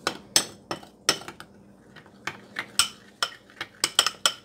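Metal utensil stirring a thick mixture in a small glass bowl, clinking against the glass in quick, irregular strikes that come faster near the end, as confectioner's sugar is mixed into a pickle frosting.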